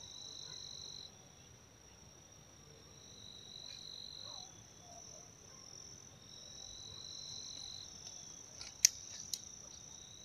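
Crickets trilling steadily in a high chorus at two pitches, the lower one fading in and out. Two sharp clicks about half a second apart near the end.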